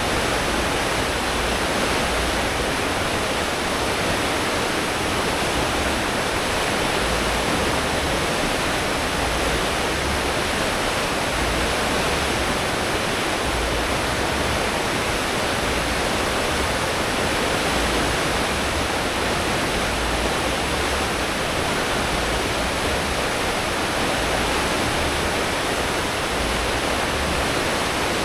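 Steady rushing of a cruise ship's wake churned up by its propellers at full speed, with a low engine rumble underneath.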